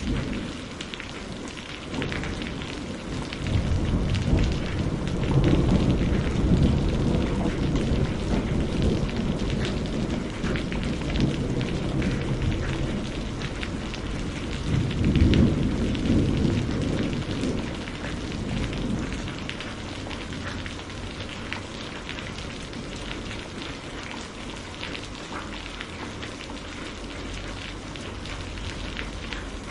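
Steady rain with many distinct drop hits, and thunder rolling low under it: one long roll builds about four seconds in and lasts several seconds, and a second, shorter roll swells about fifteen seconds in.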